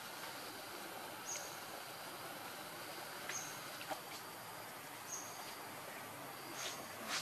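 Outdoor ambience: a steady hiss with a short, high chirp every one to two seconds and a few faint clicks.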